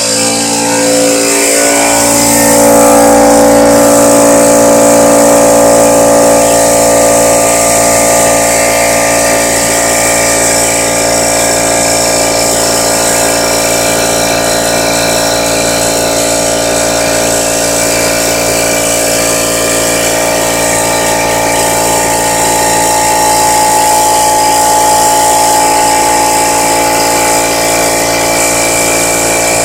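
Central Pneumatic 10-gallon oil-lubricated air compressor running steadily, its motor and pump refilling the tank toward the 125 psi cut-out after kicking back on. A loud, even drone with a steady whine over it.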